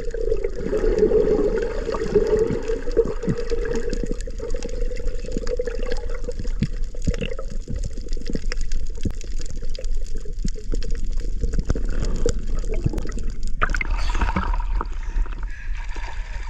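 Muffled water sound picked up by a handheld camera underwater during a freedive, dull and gurgling with scattered clicks. About three-quarters of the way through, the sound suddenly turns brighter and more open, as when the camera comes out of the water.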